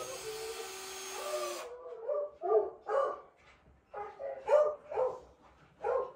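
Cordless screwdriver motor running steadily, then stopping about a second and a half in; after it a dog barks in short yaps, about seven, in loose groups.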